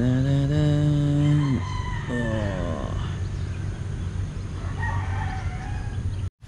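A rooster crowing once close by: a long held note that falls away at its end, then a shorter falling note.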